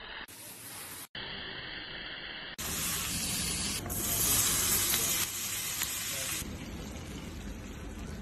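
Food sizzling: vegetables stir-fried in a hot wok, then fajitas sizzling on a hot skillet, loudest about four to five seconds in. The sound changes abruptly about one and two and a half seconds in where the clips are cut together.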